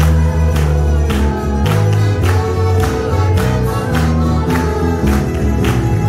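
A church band of mandolins and guitars with a saxophone accompanying a choir singing a hymn, with sharp strokes on a steady beat about twice a second.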